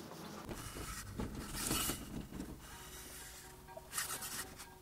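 4-inch Vertex VA4 steel milling vise slid across a surface plate: two short scraping rasps, about a second and a half in and again about four seconds in.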